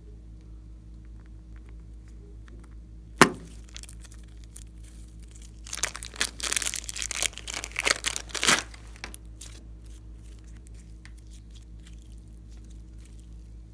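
A sharp click, then about three seconds of thin plastic crinkling and tearing as a plastic piping bag is peeled off soft clay by hand.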